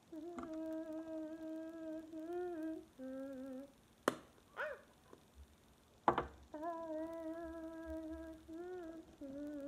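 A girl humming a tune in long held notes that bend at their ends, with two sharp clicks about four and six seconds in.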